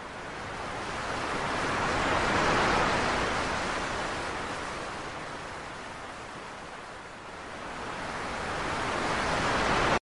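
Ocean surf: small waves breaking and washing up onto the beach. The rush of surf swells to a peak about three seconds in, ebbs away, then builds again with the next wave near the end.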